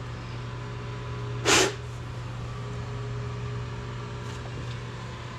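Pellet stove's blower fans running with a steady hum, with one short hiss about one and a half seconds in.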